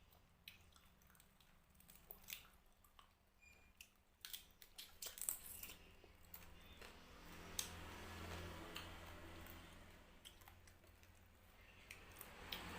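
Close-up chewing and wet mouth sounds of someone eating fried carp with rice: faint, irregular clicks and smacks, with a cluster of louder ones about four to five seconds in.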